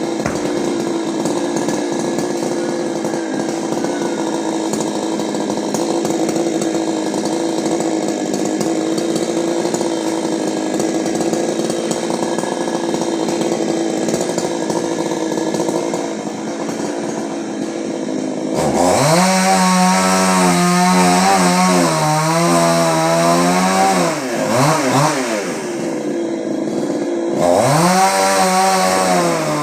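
Two-stroke chainsaw running steadily at first. About two-thirds of the way through it is revved hard, its pitch rising and sagging over and over, drops off briefly near the end, and revs up again.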